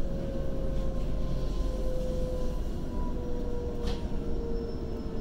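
Waratah A set electric train running, heard from inside the carriage: a steady rumble of wheels on rail under a thin electric motor whine that falls slowly in pitch as the train slows. A brief click comes about four seconds in.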